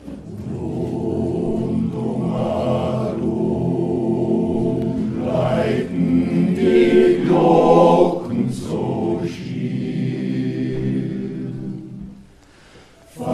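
Men's choir singing in several voice parts, with long held chords. The singing drops away briefly near the end, then starts again.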